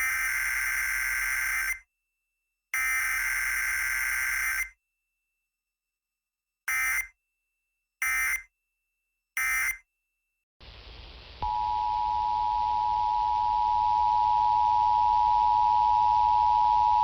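Emergency Alert System data bursts: two long, harsh digital screeches about a second apart, then three short bursts, the pattern of SAME header and end-of-message codes. About eleven seconds in, the steady two-tone EAS attention signal starts and holds, over a hiss.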